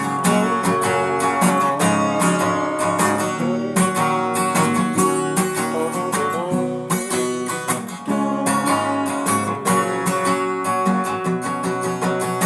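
Acoustic guitar strummed, an instrumental passage between sung lines.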